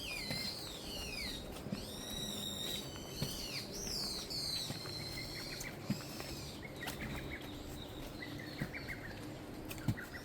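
Birds singing: high whistled notes that slide up and down, followed by fainter quick trills in the second half.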